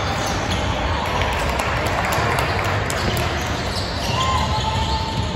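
Basketball being dribbled on a hardwood gym floor, with short knocks of the bounces and a brief shoe squeak about four seconds in, over steady background noise.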